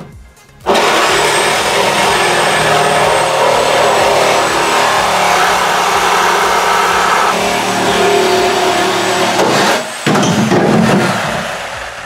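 Corded reciprocating saw cutting through the steel A-pillar of a car body shell. It starts about a second in and runs steadily, stops briefly near the end, runs again for a moment, then winds down.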